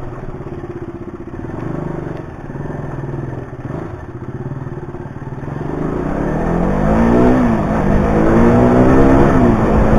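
KTM RC 200's single-cylinder engine running as the bike rolls slowly, then revved up twice in the second half, louder, its pitch rising and dropping back each time.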